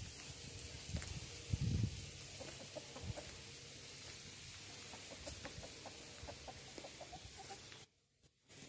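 Rooster clucking in a run of short, quick calls over a steady outdoor hiss, with a few low thumps near the start. The background cuts off suddenly near the end.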